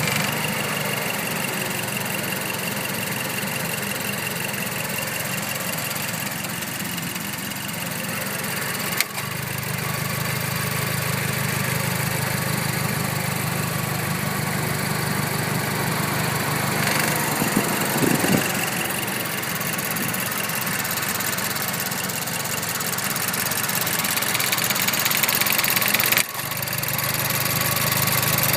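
Mazdaspeed 3's turbocharged 2.3-litre four-cylinder idling with the defroster on, with a sharp click or clunk about nine seconds in and again near the end, each briefly changing the engine's hum. The noise comes from under the top-mount intercooler area, and the owner takes it for abnormal.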